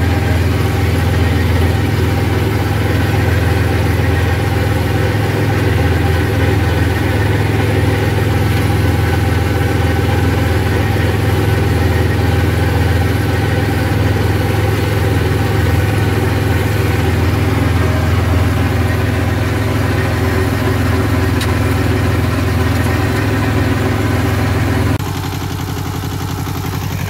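Yanmar YM1300 compact tractor's diesel engine running steadily under load, driving a rotary mower through grass, heard from inside the cab. About 25 seconds in, the sound drops suddenly to a quieter, steady engine note.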